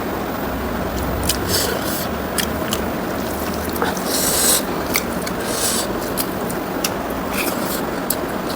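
Close-up eating sounds of pork ribs and rice with gravy being chewed: many short wet clicks and smacks, with a longer squelchy stretch about four seconds in, over steady background noise.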